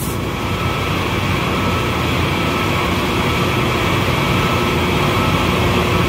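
Trane CVHF centrifugal chiller running after its overhaul: a steady machine hum and rushing noise with a thin, unchanging whine on top.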